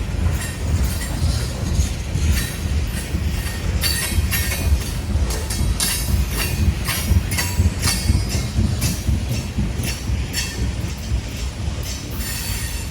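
Freight train cars rolling past on a climbing grade: a steady low rumble of wheels on rail, with repeated short, high wheel squeals.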